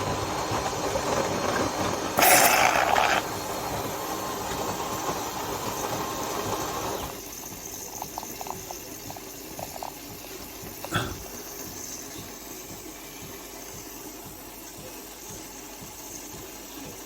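De'Longhi Primadonna Elite bean-to-cup coffee machine running, with its pump and steam hissing. A louder burst comes about two seconds in, the sound drops to a quieter hiss at about seven seconds, and there is a sharp click near the middle.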